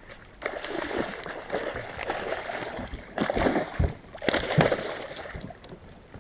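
A hooked muskie thrashing at the surface beside the boat: repeated splashing, heaviest about three seconds in and again about four and a half seconds in.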